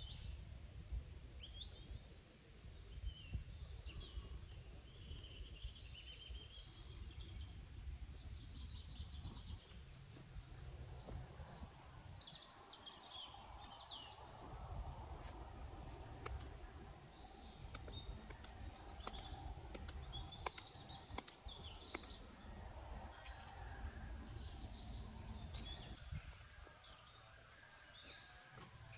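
Small birds chirping now and then, short rising and falling calls, over a faint low rumble, with scattered sharp clicks.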